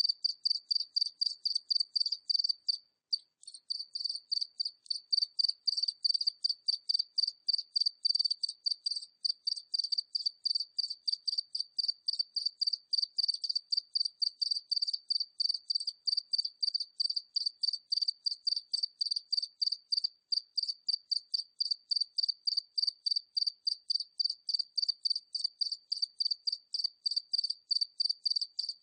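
A single cricket at medium distance chirping steadily in short high-pitched chirps, about three a second, with a brief pause about three seconds in.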